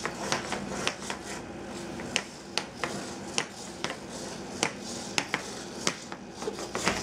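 Small four-legged walking robot stepping across a tile floor, its feet clicking and tapping at about two irregular clicks a second. It is built for carpet, so its feet slip and slide on the hard tile.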